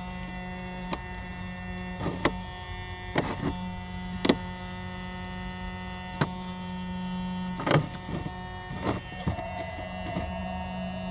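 New Attwood Tsunami bilge pump switched on for a test, its electric motor running with a steady hum. Several sharp knocks and clicks sound over it as the hose and wires next to the pump are handled.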